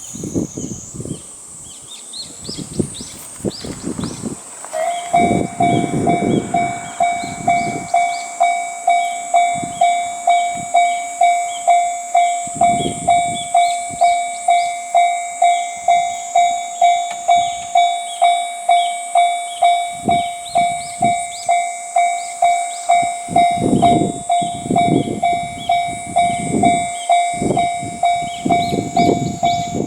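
Japanese railway crossing warning alarm: the first four seconds or so hold irregular, odd-sounding noises. About five seconds in, a steady electronic bell tone sets in, ringing about one and a half times a second, with intermittent low rumbling.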